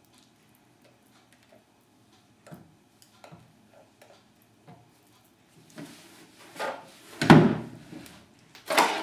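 A spatula scraping and knocking against a glass mixing bowl as batter is scraped out into a loaf pan, with light taps at first and several louder knocks in the last few seconds, the loudest about seven seconds in.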